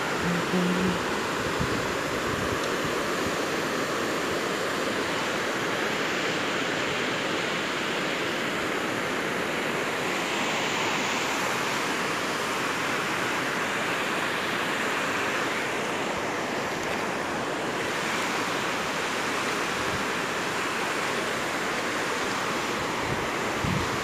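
Steady rushing of a fast-flowing, rocky mountain river.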